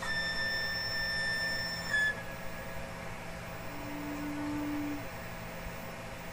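Slow wind-instrument music with sparse held notes: one high note lasting about two seconds, then a lower, quieter note about four seconds in, over a steady low hum.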